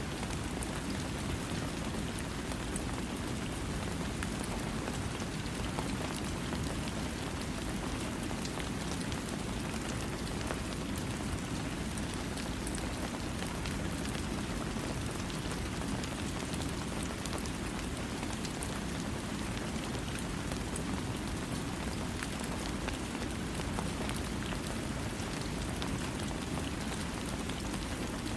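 Steady rain falling without thunder: an even, unbroken hiss, heaviest in the low range, with fine drop ticks scattered through it.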